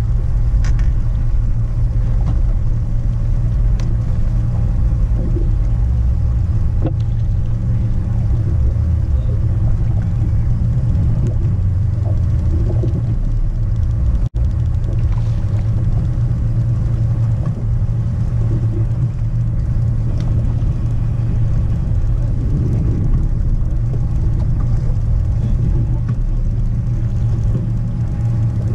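Steady low rumble of a fishing boat's running outboard motor, with wind buffeting the microphone, and a few faint ticks on top.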